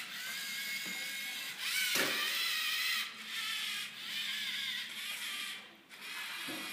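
LEGO Mindstorms EV3 robot's electric motors whining as it drives, the whine rising and falling in pitch with a few short pauses. There is a sharp click about two seconds in.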